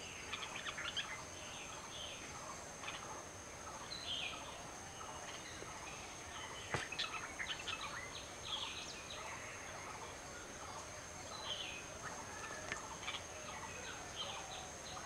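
Red-vented bulbul chirping in short, scattered call notes, with one sharp click about seven seconds in.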